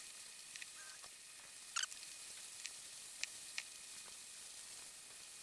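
A few faint, light clicks and ticks, about five of them scattered through, over a steady hiss: small parts being handled.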